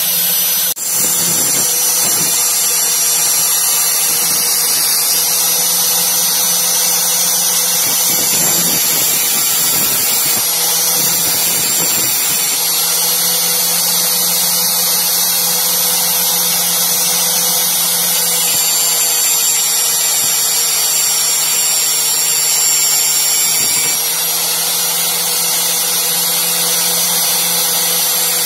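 Bench-mounted angle grinder running steadily while its abrasive disc grinds a thin steel knife blank: a constant motor whine under a harsh high grinding hiss, with a brief break about a second in.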